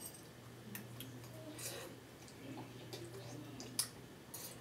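People eating hot ramen noodles fast: faint slurps and chewing, with a few sharp clicks, over a steady low hum.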